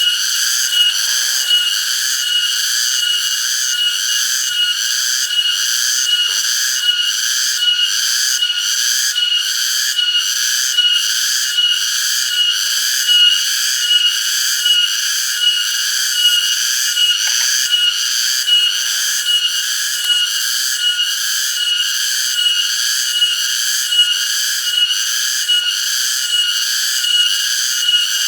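Cicadas singing in a continuous chorus: a steady high whine with a buzz that pulses about twice a second.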